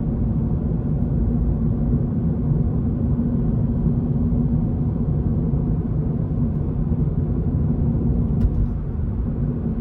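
Steady low rumble of road and engine noise inside the cabin of a Toyota GR86 on the move, with its 2.4-litre flat-four running at an even pace. A single light click about eight and a half seconds in.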